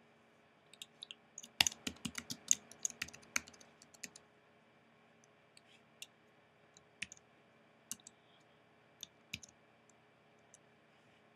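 Computer keyboard typing: a quick run of keystrokes lasting about three seconds, followed later by a few single, separate clicks.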